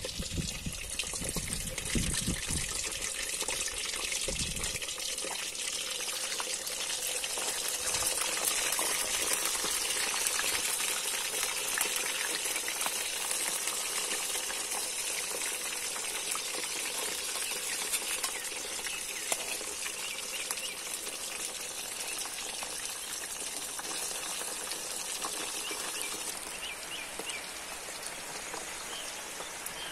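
Pieces of para fish deep-frying in hot oil in a metal wok, a steady sizzle full of fine crackles. There are a few low knocks in the first few seconds as the pieces are moved with a slotted spoon.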